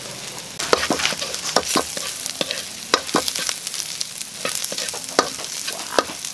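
A metal spatula scrapes and knocks against a metal wok as dried shrimp and onion are sautéed, with the oil sizzling underneath. The sharp, irregular clinks of the spatula start a little under a second in.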